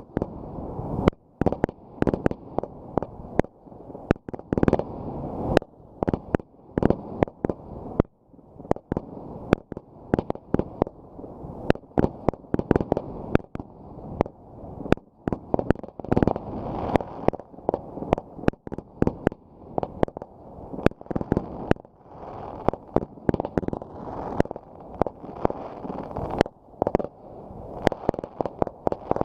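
Fireworks going off in a continuous barrage: sharp bangs come a few per second, some louder than others, over a steady deep rumble.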